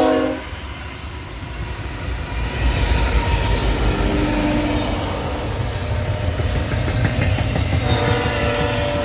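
Westbound BNSF double-stack freight train passing with a low rumble. The locomotive's multi-chime air horn cuts off just after the start and sounds again near the end, blowing for a grade crossing.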